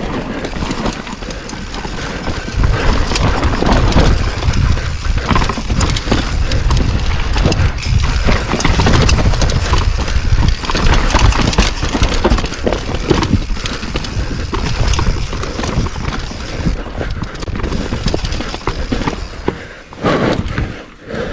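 Orange Stage 6 mountain bike ridden hard down a rough trail: tyres hammering over dirt, roots and rocks, with the bike rattling and clattering. A heavy wind rumble on the microphone builds about two seconds in.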